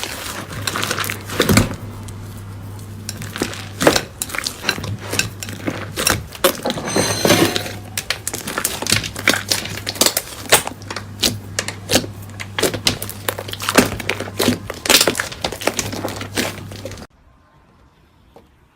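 Slime being squeezed and pressed by hand, giving a dense, irregular run of crackles, pops and clicks over a steady low hum. It cuts off abruptly near the end.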